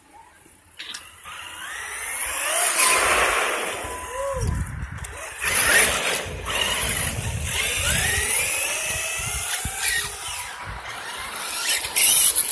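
Brushless electric motors of radio-controlled monster trucks whining, rising and falling in pitch several times as they accelerate and let off, over a steady hiss.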